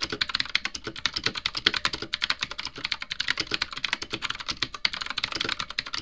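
Fast typing on a Redragon K552 Kumara mechanical keyboard with clicky switches: a dense, continuous run of sharp key clicks, many per second.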